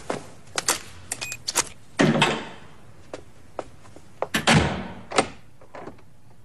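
Footsteps on a hard floor and a door handled in a hallway: a few sharp steps, then two heavy door thuds about two and a half seconds apart, each followed by a short ring, and a couple of lighter clicks before it goes quiet.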